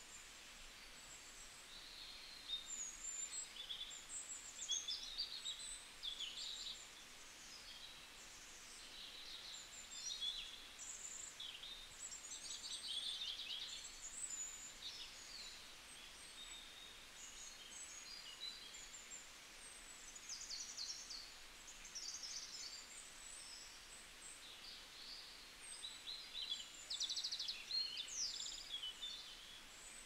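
Woodland birdsong: several songbirds singing and calling, with many short high chirps, rapid trills and whistles overlapping throughout, over a faint steady hiss.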